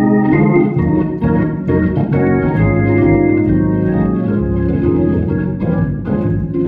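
Organ music: held chords that change every second or so.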